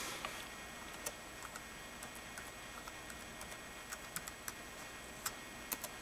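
Typing on a MacBook Pro's keyboard to enter a login password: a faint, irregular run of light key clicks.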